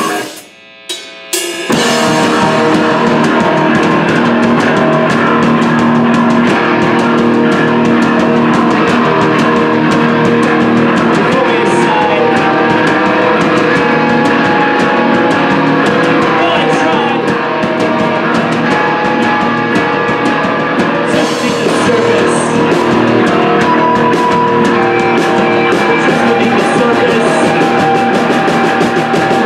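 Live punk rock band playing loud: distorted electric guitars, bass guitar and drum kit. The band stops briefly under a second in, with a couple of quick hits, then comes back in at full volume.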